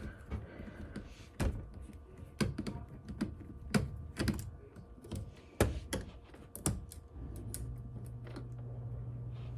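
Irregular sharp clicks and taps of laptop parts being handled during disassembly, about ten over several seconds. After about seven seconds the clicks stop and a steady low hum sets in.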